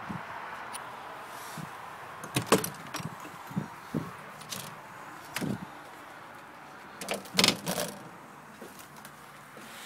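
Clicks, rattles and knocks of a fifth-wheel trailer's entry door being unlatched at its metal paddle latch and swung open, loudest about two and a half seconds in and again around seven and a half seconds in, over a faint steady hiss.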